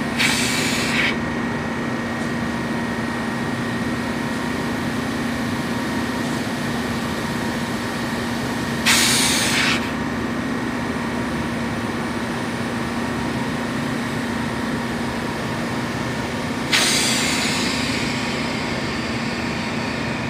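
Steady hum of a semi-hermetic refrigeration compressor running, broken three times by short, loud hisses: right at the start, about nine seconds in and about seventeen seconds in. The hisses are pressurized oil and gas spurting from the crankcase drain fitting into a rag as the old oil is forced out. The last hiss fades more slowly.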